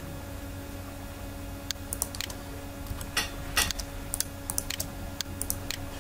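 Computer keyboard keystrokes: a run of irregular key clicks starting a little under two seconds in, as a command is typed, over a steady low hum.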